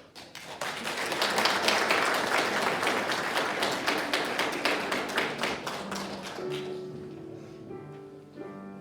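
Audience applause that swells in quickly and dies away; about six seconds in, soft instrumental music begins.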